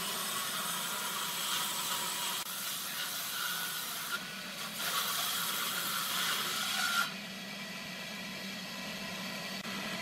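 Table saw on a Hitachi combination woodworking machine ripping a thick wooden beam lengthwise: the motor and blade run steadily under the hiss of the cut. The cutting noise thins briefly about four seconds in and falls off after about seven seconds while the saw keeps running.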